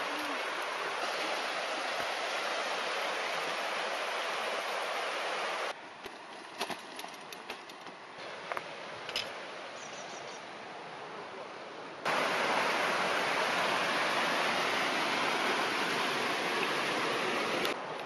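Fast-flowing river rushing over rocks, a steady hiss of water. About six seconds in it drops for several seconds to a quieter stretch with a few sharp clicks and knocks, then the rush returns.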